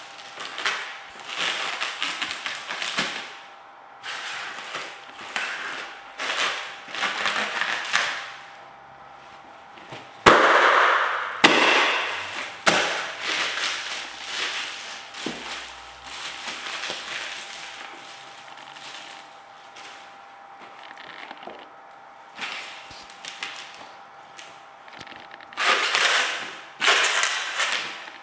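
Silver mylar foil balloons crinkling and crackling under sock-clad feet as they are stomped and squashed, with a sharp pop about ten seconds in as one bursts, followed by more crumpling of the foil.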